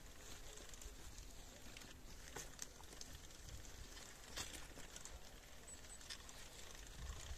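Faint outdoor ambience with a few scattered light clicks and crackles, the loudest about four and a half seconds in.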